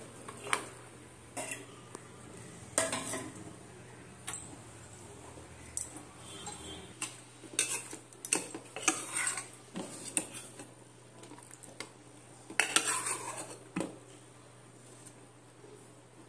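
Steel serving spoon clinking and scraping against a steel pot and a plastic lunch box while food is served out, in scattered short clatters, the loudest about 3 s and 13 s in.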